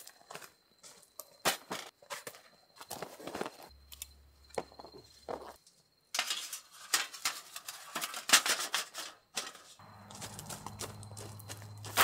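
Footsteps crunching on gravel and the clinks and clatter of a folding metal fire pit stand being handled and set up, with rustling, busiest about halfway through. A low hum comes in near the end.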